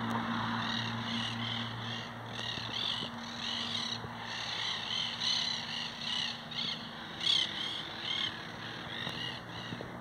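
A flock of monk parakeets (caturritas) chattering in the eucalyptus trees: a steady stream of short, harsh, repeated squawks, with a low steady hum underneath in the first few seconds.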